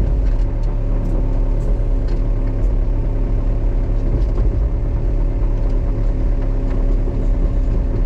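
Excavator's diesel engine running steadily with an even hum, with a few faint clicks and knocks over it.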